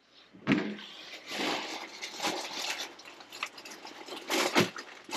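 Rustling and handling of produce and packaging in a cardboard delivery box, with a few sharper knocks about half a second in and again near the end.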